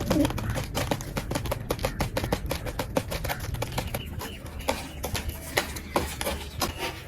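Rapid, irregular tapping and clicking, several taps a second, thinning out to scattered clicks after about four seconds.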